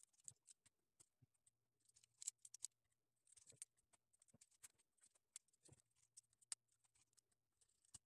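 Near silence with faint, scattered small clicks and taps from hands handling an open laptop and a small screwdriver, working at the screw that holds the Wi-Fi card.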